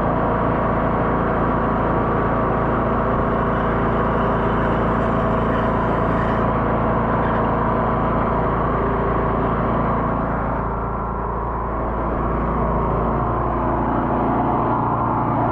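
Engine of a high-pressure drain jetter running steadily, dipping slightly in level about ten seconds in.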